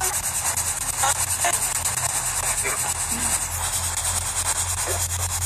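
Steady radio static from a ghost box, a hiss finely chopped many times a second as it sweeps, with a low hum beneath.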